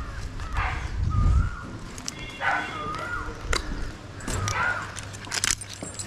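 Wavering, whistle-like animal calls, four or five in a row, over a low steady hum, with a few sharp knocks in the second half.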